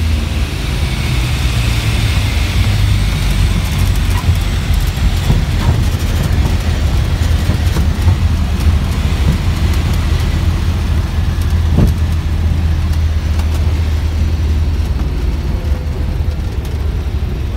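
Cabin noise of a light twin-engine airplane, one engine's throttle cable broken: the engines and propellers give a steady low drone under a rushing hiss.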